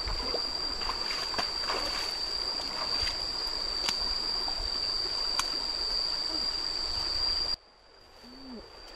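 Flowing stream water with footsteps wading and sloshing through shallow muddy water, and a few sharp snaps or knocks as a person pushes into bushes on the bank. A steady high-pitched tone sounds over it. The sound drops abruptly quieter about a second before the end.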